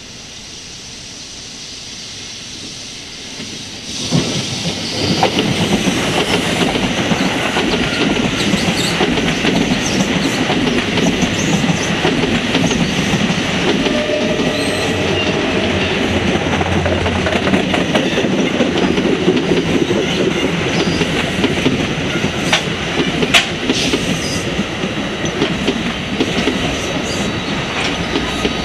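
NJ Transit passenger train approaching and then passing close by. The rumble of the wheels on the rails swells, turns suddenly loud about four seconds in, and carries on steadily with repeated clicking over the rail joints.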